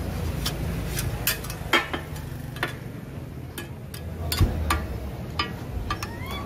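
Metal spatulas clacking and scraping on a steel tawa griddle as chicken in gravy is worked, with sharp irregular clacks over a steady low hum.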